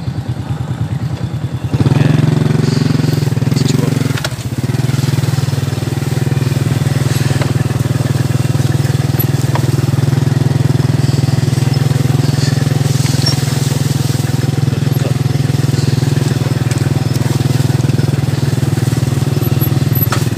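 Small motorcycle engine running steadily at low speed. It gets louder about two seconds in and dips briefly around four seconds.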